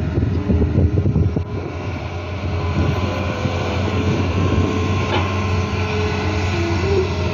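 Long-reach excavator's diesel engine running steadily with a deep drone, rougher and louder for the first second and a half. A fainter higher whine wavers in pitch near the end.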